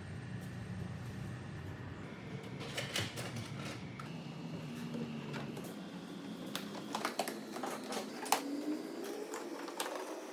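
Irregular clicks and light knocks, like parts and tools being handled during interior work on the truck, over a low hum that cuts out about halfway through.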